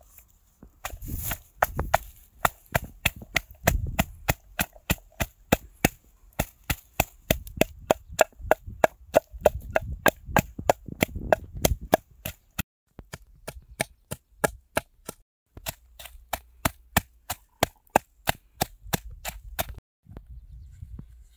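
Knife chopping on a wooden cutting board: sharp, steady strokes about three a second, with a few short pauses.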